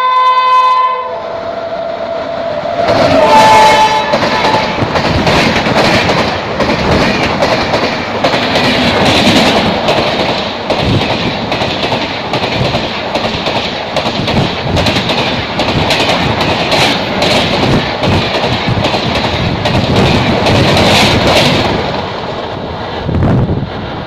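WAP7 electric locomotive's horn sounding a multi-tone chord that ends about a second in, then a second short blast about three seconds in. A train of LHB coaches then runs through the station without stopping, a loud steady rush with rapid clicking of wheels over rail joints, dropping away near the end.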